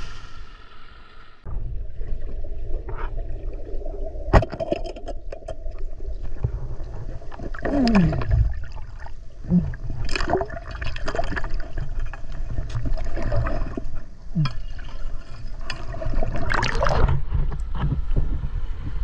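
River water gurgling and rushing, with scattered sharp clicks and knocks. A steady low rush sets in suddenly about a second and a half in.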